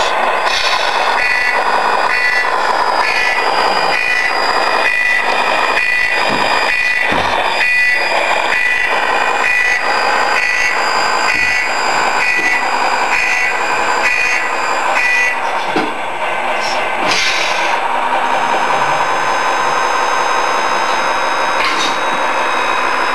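The Tamiya Mercedes 1838 RC truck's electronic sound unit plays a steady engine drone with a reversing beeper sounding about three times every two seconds. The beeping stops about fifteen seconds in while the engine sound carries on.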